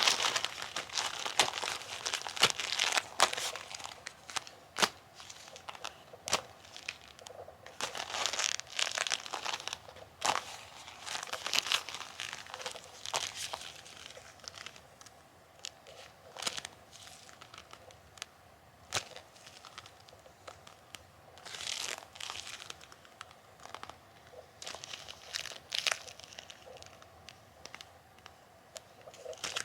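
Bilpearl rubber gloves worn on the hands, rubbed and pressed hard together, making irregular rustles with sharp sticking-and-peeling clicks. The rubbing is loudest in the first few seconds.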